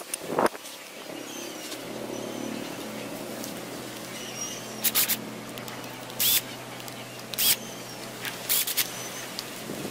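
Cordless drill driving the bolts that fasten a brake disc to a wheel hub, run in four short bursts over the second half, with a knock near the start. Faint bird chirps in the background.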